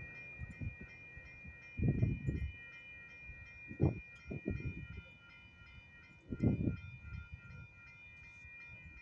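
Railroad crossing warning bell ringing steadily and evenly while the crossing signal stays active after a train has cleared. Several short low rumbles of noise break in about 2, 4 and 6.5 seconds in.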